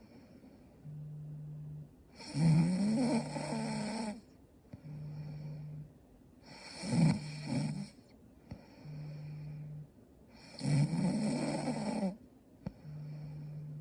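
A young woman snoring in her sleep: three loud snores about four seconds apart, each rising in pitch, with a quieter breath between each pair.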